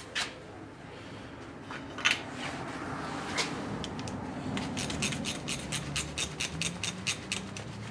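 Socket ratchet clicking in an even run of about five clicks a second while a bolt is turned, after a few sharp metal clinks of tools on the engine.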